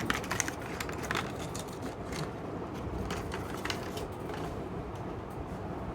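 Small toy packaging being handled and opened: scattered crinkles and clicks of the box and wrapping, thickest in the first couple of seconds, over a steady low background rumble.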